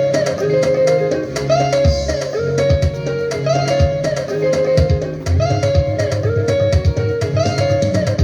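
Upbeat praise dance music: a repeating guitar riff over a bass line and a steady drum beat.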